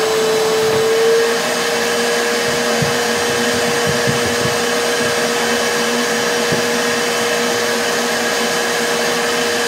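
Shop vac running steadily, drawing vacuum through the perforated table of a homemade vacuum former to suck a heated plastic sheet down over the molds. Its hum rises slightly in pitch about a second in.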